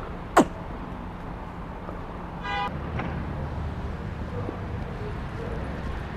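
Street traffic rumbling steadily, with a single short vehicle horn toot about two and a half seconds in. A sharp click near the start is the loudest sound.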